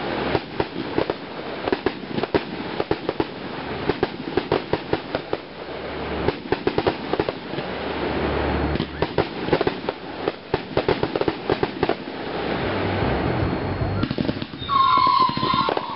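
Fireworks going off: many rapid, overlapping sharp pops and crackles that swell and fade in waves. Near the end a steady high-pitched tone comes in over them.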